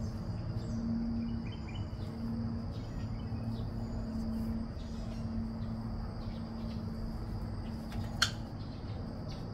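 Outdoor background of a steady high insect drone over a low steady hum, with one sharp click about eight seconds in.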